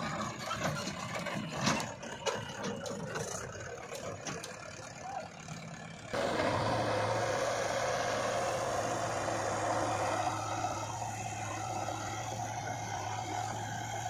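Diesel engine of a Mahindra tractor pulling a trolley over rough dirt, with irregular knocks and rattles. About six seconds in the sound switches abruptly to steady diesel engines running, from a JCB 3DX backhoe loader and the tractor standing side by side.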